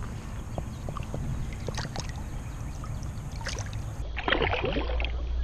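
Pond water lapping and sloshing as a bass is held in the shallows at the bank, then a louder burst of splashing about four seconds in as the released fish kicks away.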